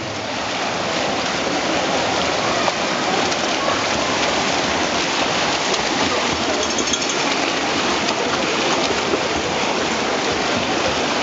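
Swimmers splashing in an indoor pool, a steady, echoing wash of churning water.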